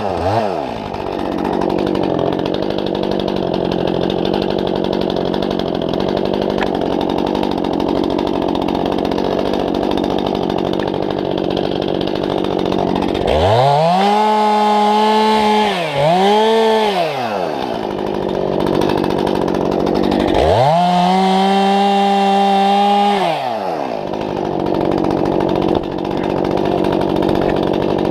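Two-stroke chainsaw idling, then opened up to full throttle three times as it cuts into a felled trunk: near the middle, briefly again a second later, and for about three seconds about three quarters of the way through, dropping back to idle each time.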